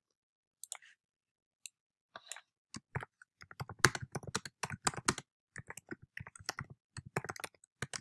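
Typing on a computer keyboard: a few scattered clicks, then a quick run of keystrokes from about three seconds in, trailing off near the end.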